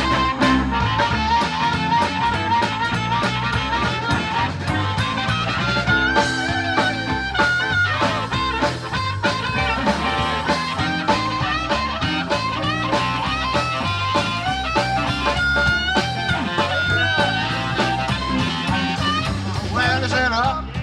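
Live blues band playing an instrumental break: drums and bass keep a steady groove under a bending lead solo line.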